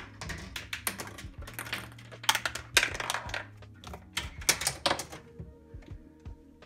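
A K'nex and plastic-track chain-reaction machine running: rapid clicking and rattling as plastic balls and parts knock, roll and tumble along the tracks and pieces. It is densest in the first five seconds, then thins to a few scattered clicks.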